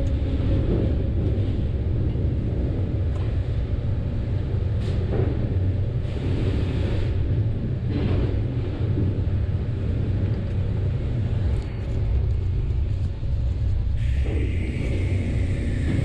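Steady low rumble of sawmill resaw machinery and conveyors, heard from inside the operator's booth, with a few short knocks. Near the end a higher whine joins in.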